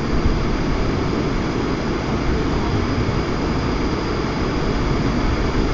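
Steady rushing noise of a flowing river, with wind buffeting the microphone.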